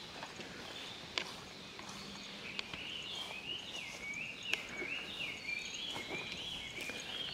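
A bird calling in woodland, a quick run of rising-and-falling whistled notes that starts a few seconds in and keeps going, with a few footsteps before it.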